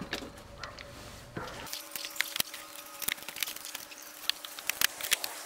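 Original 1985 mobile home window being pried and pulled out of the wall opening: a run of irregular sharp crackles and pops, busiest in the second half, as the frame breaks free of its old caulk and cracks.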